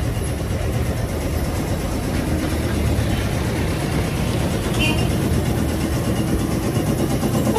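A vehicle engine running with a steady, even rumble, and a brief high chirp about five seconds in.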